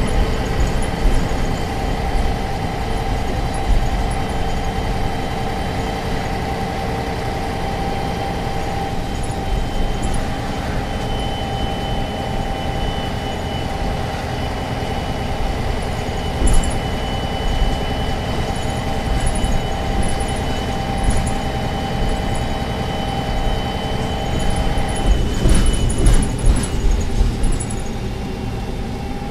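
MAN NG 263 articulated city bus with its MAN D2866 diesel running steadily, a steady whine over a constant low rumble. About 25 s in the whine breaks off amid a short run of clicks and rattles.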